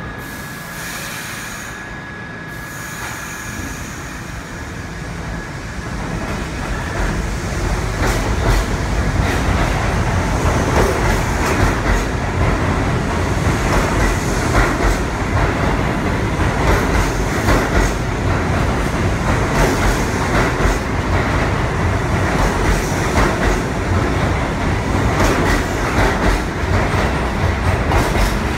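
New York City subway D train of R68 cars pulling out of the station and picking up speed. The rumble of its motors and wheels grows over the first several seconds into a loud, steady clatter, with rapid clicks of the wheels over the rail joints as the cars pass at speed.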